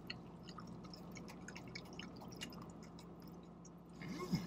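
Hot water trickling from an insulated tumbler into a cup of instant noodles, heard as a faint run of small splashing ticks over a low steady hum. A brief voice sound comes near the end.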